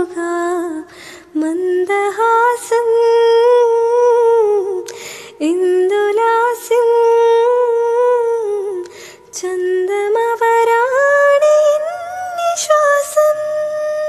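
A woman humming a melody without accompaniment, in long held phrases with small ornamental turns and short breaks for breath between them. The tune is that of a Malayalam devotional song, and the last note is held and fades out near the end.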